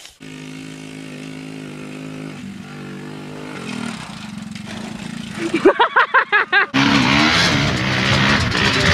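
ATV engine running steadily, its pitch stepping down a couple of times. Near the end comes a short loud burst of a voice, then an ATV engine running under loud crowd noise at a dirt track.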